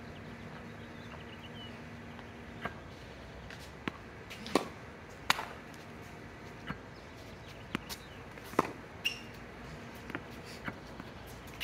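Tennis balls knocking off rackets and bouncing on a hard court, a dozen or so sharp irregular pops and thuds, with a few bird chirps.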